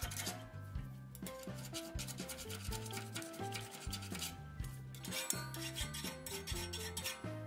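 Steel hand file rasping in strokes over welded joints of a steel rod rail, smoothing the welds, with background music throughout.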